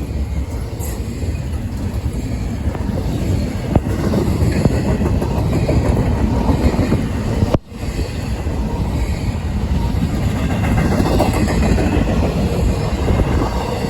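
CSX double-stack intermodal freight train rolling past, a steady rumble of its cars on the rails, with strong wind buffeting the microphone.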